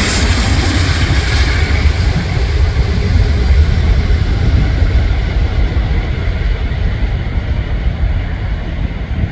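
Airbus A380-841's Rolls-Royce Trent 970 jet engines as the airliner passes on landing: a loud, deep rumble, with the high hiss of the engines fading over the first couple of seconds as it moves away.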